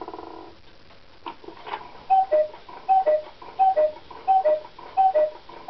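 Carved wooden 8-day cuckoo clock with a Regula 34 movement sounding the hour: its bellows pipes give a two-note cuckoo call, high then low, about every three-quarters of a second, five times from about two seconds in, each with a click of the mechanism, over the clock's steady ticking. A short whirr sounds at the very start.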